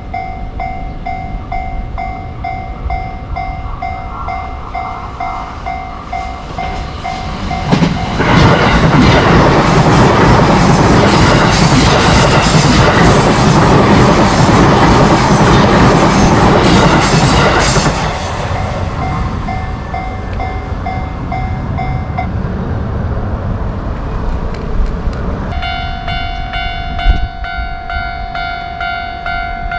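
Japanese level-crossing warning bell dinging repeatedly as an electric train passes. The train is loud for about ten seconds and mostly drowns the bell. The bell goes on after the train and then stops. Near the end a different crossing bell with a higher, brighter ding starts up.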